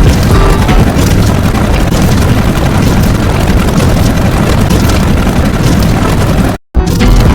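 Loud, dense, distorted rumbling noise, heaviest in the bass, that drops out for a split second about six and a half seconds in and then carries on.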